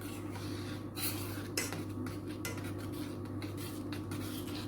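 A spoon stirring hot milk in a pot, with steady scraping and a few light clinks against the pot.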